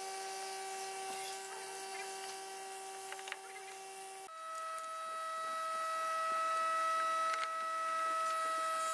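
A steady hum of held tones that steps up to a higher pitch about four seconds in, with a few faint clicks over it.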